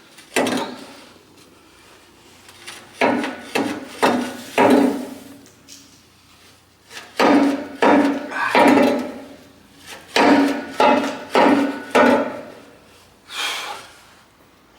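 Hammer blows on a steel boiler tube, each strike ringing briefly in the metal, about fifteen blows in bursts of two to five: knocking an old fire tube out of a traction engine boiler.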